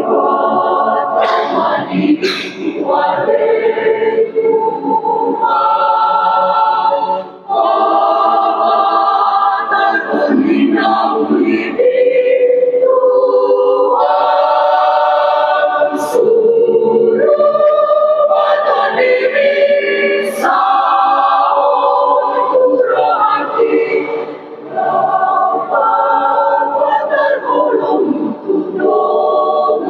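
Mixed choir of men's and women's voices singing in harmony, holding long chords, with short breaks between phrases about seven seconds in and again near the end.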